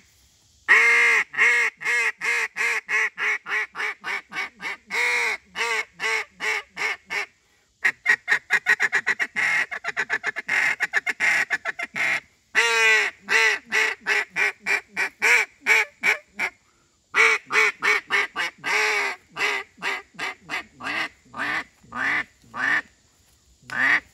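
Nose Dive double reed duck call in Delrin blown by hand, giving a run of duck quacks. The notes come in four runs with short pauses between them; the second run is a faster string of short notes, and the last run tapers off in loudness.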